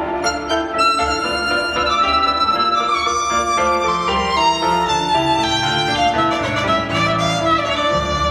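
Instrumental music with a violin melody of held, gliding notes over a bass line, played back as a sound test of JBL 305p MkII powered studio monitors.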